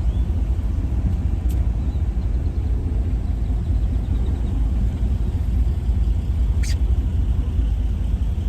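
Steady low rumble of a truck idling, heard from inside the cab, with two brief clicks about a second and a half in and again about five seconds later.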